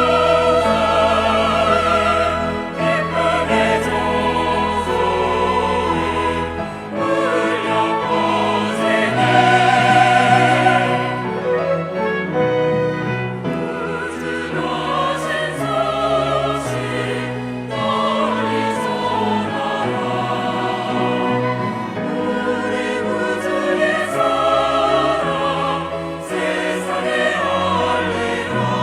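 Church choir singing a sacred anthem in parts: sustained voices with vibrato over held low accompaniment notes.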